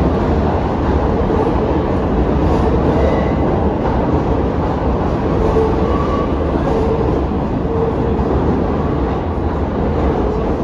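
An R46 New York subway train running past the platform in an underground station: a loud, steady noise of wheels and running gear, with brief higher wheel squeals about three and six seconds in.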